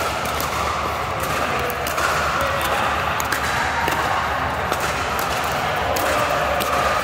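Pickleball paddles striking a hard plastic ball: scattered sharp pocks over a steady wash of background noise.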